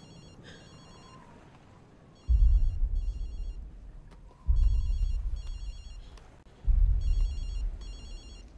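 A telephone ringing in double trills about every two seconds, three full rings after the tail of one at the start. Each ring is joined by a loud, deep boom that starts suddenly and fades over about two seconds.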